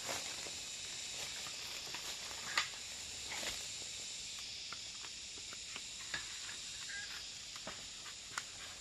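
Outdoor ambience: a steady high hiss with scattered light clicks and rustles, a handful of them about a second or two apart.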